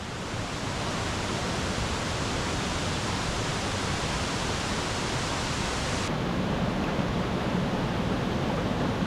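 Steady rush of a rocky mountain stream and its waterfalls, with the water running high after heavy rain.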